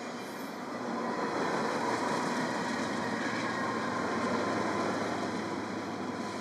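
Cars of a BNSF manifest freight train rolling past: a steady rush of steel wheels on rail that swells about a second in and eases slightly near the end, with a faint steady wheel whine over it.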